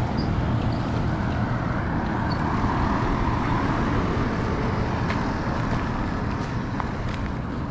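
Steady road traffic noise: vehicle engines and tyres running, with a slight swell in the middle.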